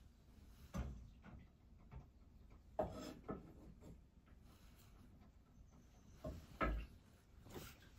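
A few scattered light knocks and clunks of objects being handled in a small room, the loudest about three seconds in and again near seven seconds.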